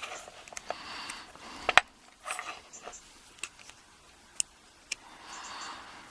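Small metal tool scraping and clicking against the retaining clip of a euro cylinder lock as it is worked to prise the clip off. A sharp click a little under two seconds in is the loudest, followed by a few lighter ticks and a stretch of soft scraping near the end.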